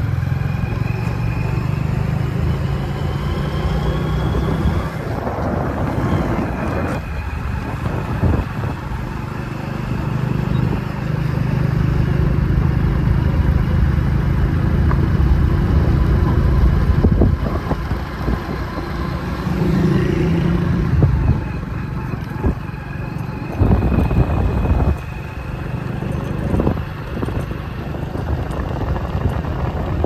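Vehicle engine running with air rushing past, heard from on board the moving vehicle; the engine note rises and falls as it drives along.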